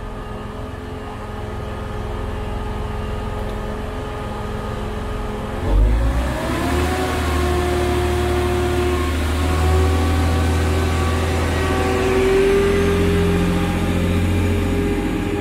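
Class 185 diesel multiple unit's Cummins underfloor diesel engines running steadily at the platform. About six seconds in they open up for departure: a sudden rise in level and a rising whine that settles into a steady, louder note as the train pulls away.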